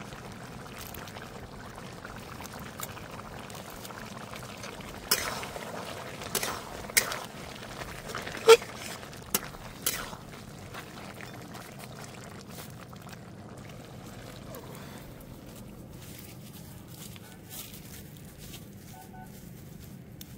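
Goat-head curry simmering and bubbling in a steel kadai over a wood fire. Between about five and ten seconds in, a spatula knocks and scrapes against the pan about six times as the curry is stirred, the loudest knock near the middle.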